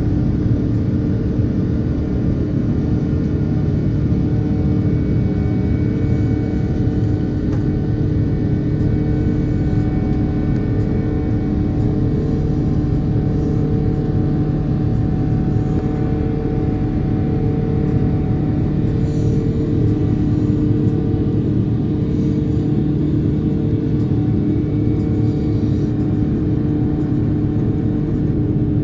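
Steady cabin drone of an Airbus A330-900neo climbing after takeoff: its Rolls-Royce Trent 7000 engines and the airflow, a deep rumble with a steady hum and a hum that wavers about once a second.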